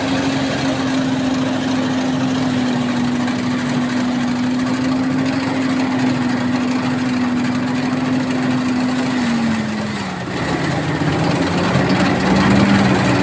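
Motorized rice thresher running with a steady engine note that drops lower about nine and a half seconds in, then grows a little louder near the end.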